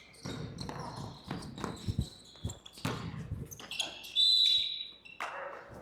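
A basketball being dribbled on a hardwood gym floor, with irregular thuds and other court sounds. About four seconds in there is a loud, high-pitched squeal lasting under a second.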